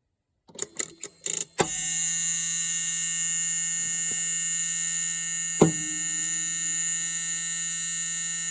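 Generac 22 kW standby generator on a manual start: a few clicks, then a loud, steady electrical buzz, with one sharp click midway. The technician takes the sound for a sign of a bad starting battery.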